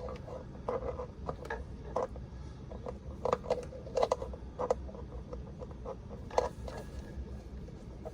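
Irregular light knocks and scrapes of a power cord and plugs being handled and moved about.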